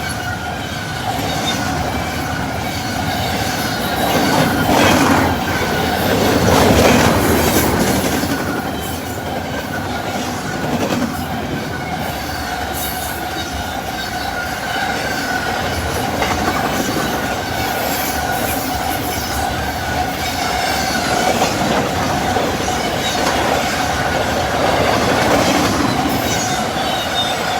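Freight train cars rolling past at speed, their wheels clicking over rail joints with a steady high-pitched ring from the wheels and rails. The sound swells louder a couple of times, around 5 and 7 seconds in.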